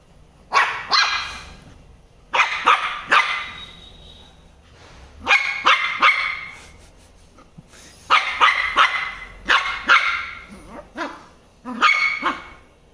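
Shih Tzu puppy barking, sharp high barks in repeated bursts of two to four with short pauses between.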